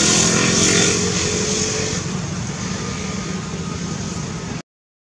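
A motor vehicle engine running, a steady low hum under a broad rush of noise, cutting off suddenly about four and a half seconds in.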